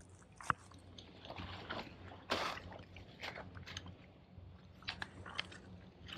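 Feet crunching on dry leaf litter and a trekking pole's tip clicking on rock, in irregular crunches and clicks, the loudest about two seconds in.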